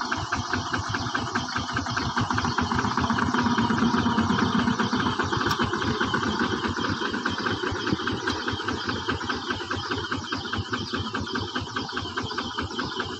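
Single-cylinder diesel engine of a two-wheel walking tractor running with a rapid, even chugging, a little louder about four seconds in.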